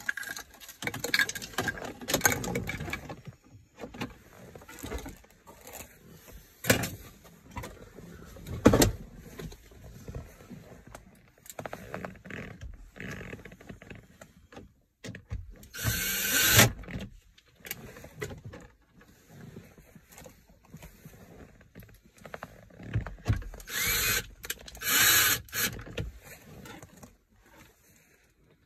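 Wiring harness connectors and plastic dash parts being handled: irregular clicks and knocks, with two longer bursts of rustling, one about midway and one near the end.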